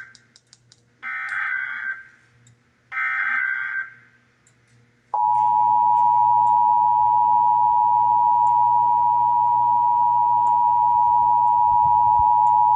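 Emergency Alert System test header: the last two of three raspy SAME digital data bursts, about a second each. About five seconds in, the EAS attention signal starts: a loud, steady two-tone sound at 853 and 960 Hz, held for about eight seconds.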